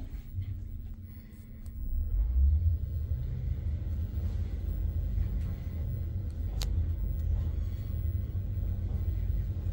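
Passenger elevator cab travelling down: a steady low rumble of the car running in the shaft, building up about two seconds in as it gets under way, with a single sharp click past the middle.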